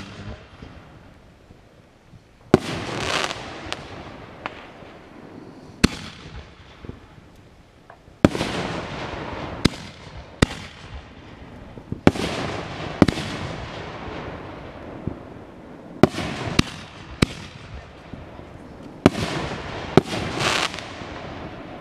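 Aerial firework shells bursting: about a dozen sharp bangs at uneven intervals, several followed by a drawn-out echo and crackle.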